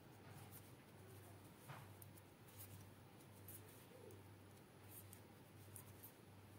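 Near silence with faint, scattered clicks of knitting needles as plain stitches are knitted in wool, over a low steady hum.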